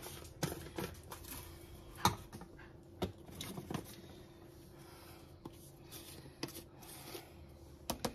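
Faint, scattered light clicks and taps of hands handling spice containers over a slow cooker, with a faint steady hum underneath.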